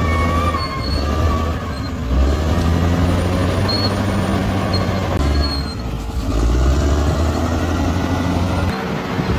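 Bulldozer's diesel engine working under load, rising and falling in strength, with short high squeaks from the steel tracks recurring every second or so.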